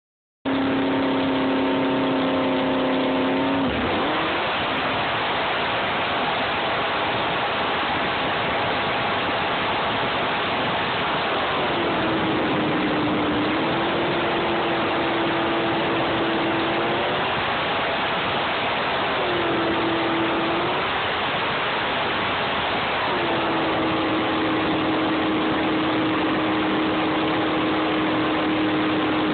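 Supercharged jet boat engine running hard at speed, heard up close from the cockpit over a constant rush of wind and water. Its note drops back and rises again a few times, about a third of the way in, near the middle and again two-thirds in, then holds steady.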